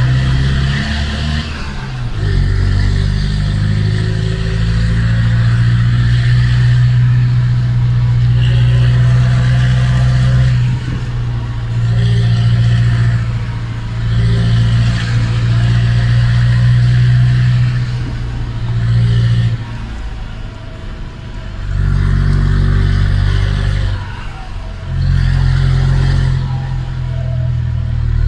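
Mercedes-Benz Atego 1017 truck's four-cylinder turbodiesel heard from inside the cab, pulling under load with its turbo whistling. The engine note drops away briefly three times before picking up again.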